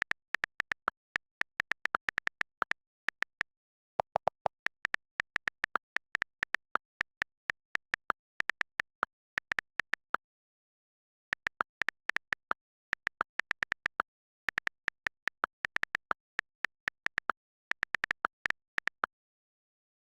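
Rapid typing key clicks, about five or six a second, in quick runs with a short pause partway through. The clicks stop near the end.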